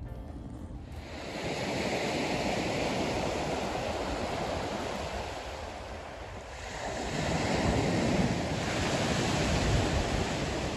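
Fluid Film rust-preventive being sprayed inside a car's front wheel well: a steady spray hiss in two long passes, with a short break about two-thirds of the way through.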